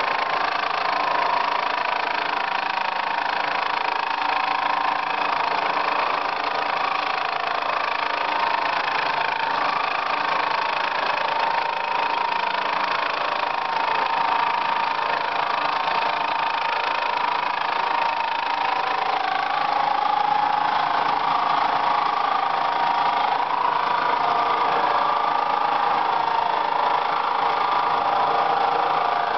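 Milling machine taking a long continuous cut in stainless steel: a steady machining drone with a high whine from the spindle and cutter. The whine drops a little in pitch about two-thirds of the way through.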